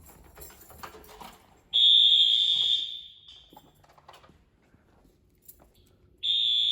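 First-generation Wheelock AS fire alarm horns sounding during a fire alarm test: a high-pitched horn blast about a second long a little under two seconds in, then another blast starting near the end, about four and a half seconds later.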